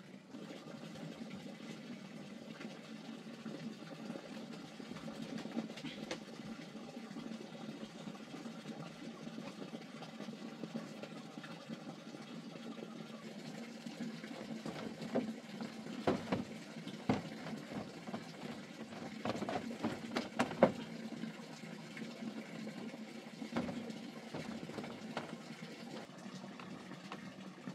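Steady sound of running water, with a run of sharp knocks and clatters of bamboo slats near the middle as someone shifts and moves on a bamboo deck.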